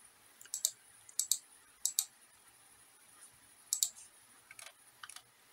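Computer mouse clicking: about half a dozen sharp clicks, most heard as a quick double tick of button press and release. Three come in quick succession in the first two seconds, then after a pause more follow near the end, the last ones fainter.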